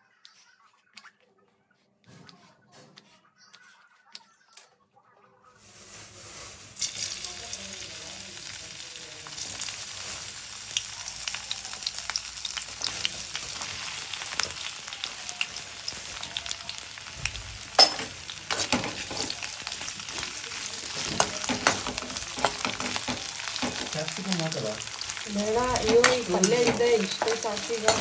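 A knife clicks a few times on a wooden chopping board. About six seconds in, cut gourd and potato pieces go into hot oil in a pan and start sizzling with a steady hiss. A steel ladle scrapes and taps as it stirs them.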